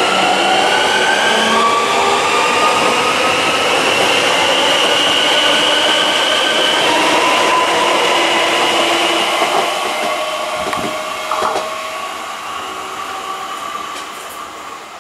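Electric multiple unit running past, with a steady rush of wheels on rail and several whining electric tones over it. About two-thirds of the way through it fades away as the train draws off.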